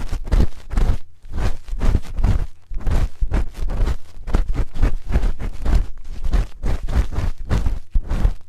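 A spoon scraping and rubbing right at the microphone's ear in quick repeated strokes, several a second. Each stroke carries a deep rumble and a scratchy hiss.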